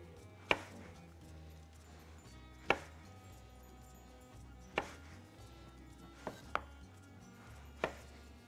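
Kitchen knife cutting tomato slices into quarters on a wooden cutting board: about six sharp knocks of the blade meeting the board, spaced one to two seconds apart, with two close together just after the middle.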